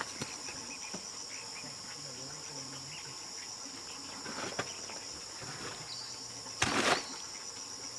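Steady high-pitched insect chorus trilling without a break. About two-thirds of the way through, a short, louder rustling scrape cuts across it.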